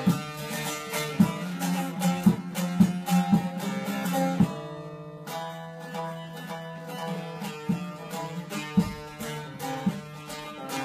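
Bağlama (long-necked Turkish saz) played solo, with no voice: a plucked and strummed melody over a steady low drone string, marked by sharp strokes across the strings. The strokes let up briefly about four and a half seconds in.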